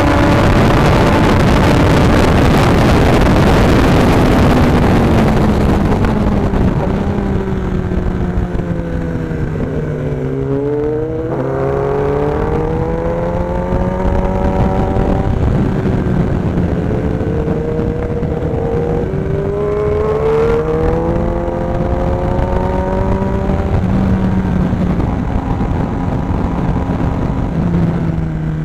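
Kawasaki ZX-10R's inline-four engine at track speed, heard onboard. A dense rush of wind and engine noise fills the first few seconds, then the revs fall and climb again several times through the corners.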